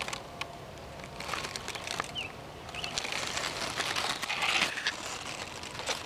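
Crackling and rustling of dry vegetation being handled or pushed through, with a few short high chirps in between. The rustle grows louder a little after halfway.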